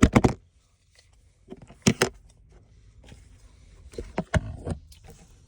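Handling noise from a plastic power bank and an Apple Watch: sharp clicks and taps in a few short clusters, at the start, about two seconds in, and again around four seconds in.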